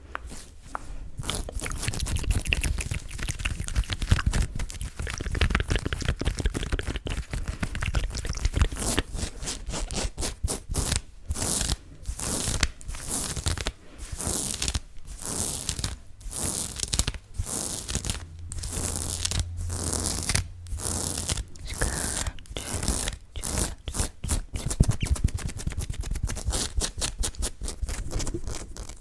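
Close-miked ASMR scratching and rubbing right on the microphone: quick, continuous scratchy strokes over a low handling rumble.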